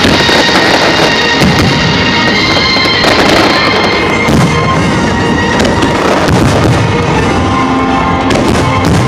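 Aerial fireworks going off in a dense string of bangs, with loud music playing along with them.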